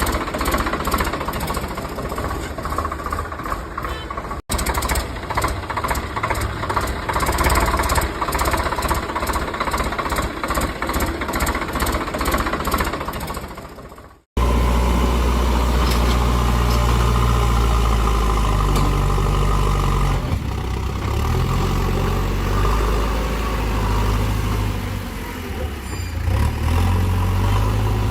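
Engine running with a fast knocking pulse. After a sudden cut about halfway through, it gives way to a steadier, deeper engine drone.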